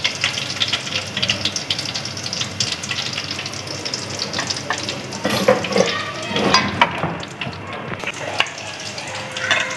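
Hot oil sizzling and crackling as egg-coated chicken pieces deep-fry in a metal wok, with a couple of louder knocks about five and six and a half seconds in.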